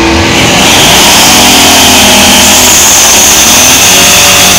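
A truck's engine revving hard during a burnout, with the rear tyres spinning and squealing. It is very loud.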